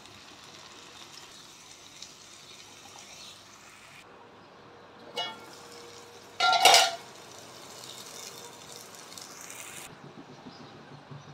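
Onion-tomato masala for pav bhaji sizzling in a kadhai as it is stirred, a steady frying hiss. A metal spoon clinks against the pan about five seconds in, then strikes it in a louder, briefly ringing clank a moment later.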